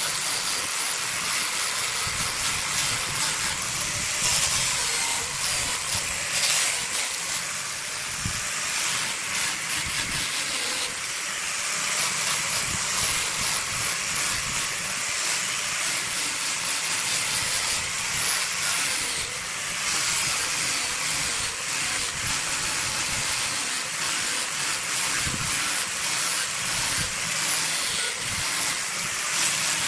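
Angle grinder with a sanding disc sanding a burl log as it turns on a wood lathe: a steady hiss of abrasive on wood over the running grinder motor.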